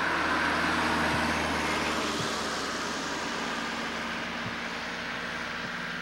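A van driving past on the road close by, a steady rush of engine and tyre noise that fades slowly.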